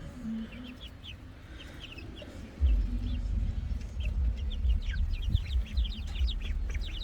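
Backyard chickens clucking, many short high calls in quick succession. About two and a half seconds in, a loud low rumble starts under them and carries on.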